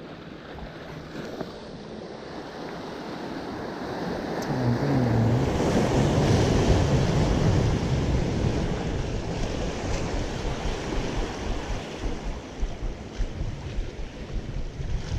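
Ocean surf: a wave rolls in and breaks, building from about four seconds in and slowly fading, with wind buffeting the microphone.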